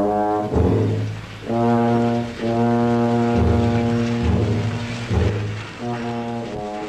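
Film score music led by brass: a series of held brass chords, each lasting about a second, over deep low notes.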